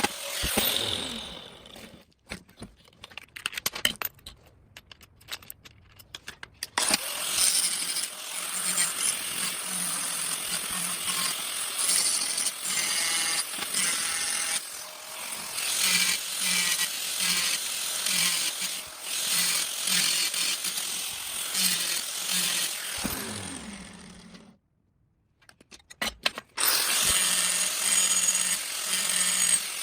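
Angle grinder grinding a steel control arm mount flat, a loud steady grinding hiss; it stops and starts a few times, winding down near the end before starting up again.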